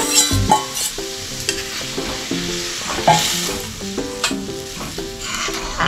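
Moong dal cooking in a kadai and being stirred, sizzling, with a few sharp clicks of the spatula against the pan. Soft background music with steady notes plays underneath.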